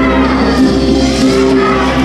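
Instrumental backing music for a children's song, playing steadily.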